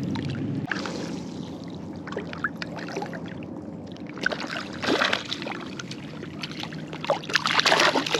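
Water splashing as a hooked trout is fought and brought in through shallow bay water, with a burst of splashing about five seconds in and the loudest, longest splashing near the end.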